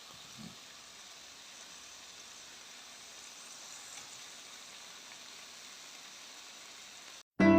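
Chicken wings frying in olive oil with onion and spices in a pan: a faint, steady sizzle, with a small knock about half a second in. It cuts off near the end, where piano music begins.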